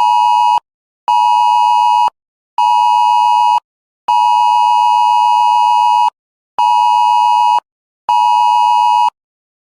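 Wireless Emergency Alert attention tone on a phone, sounding for a nationwide emergency alert test. A loud, harsh steady tone repeats in a long-short-short cadence: a tone of about two seconds, then two one-second beeps, each with a half-second gap. It stops shortly before the end.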